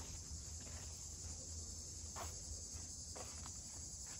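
Steady high-pitched insect chorus, like crickets, trilling without a break, with a couple of faint soft taps about two and three seconds in.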